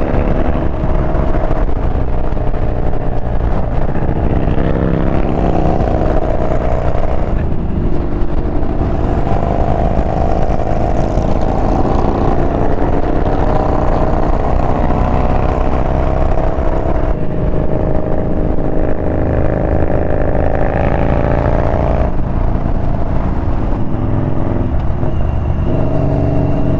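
A Yamaha Bolt's air-cooled V-twin engine running under way at road speed. Its note rises through each gear and drops at several shifts.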